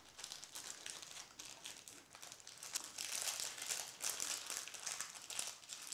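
Parchment paper crinkling faintly and irregularly as its edge is folded over and crimped shut in small quarter-turn folds.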